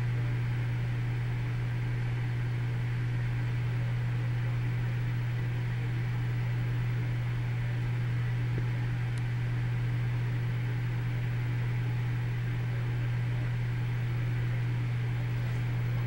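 A steady low mechanical hum with an even hiss behind it, unchanging throughout.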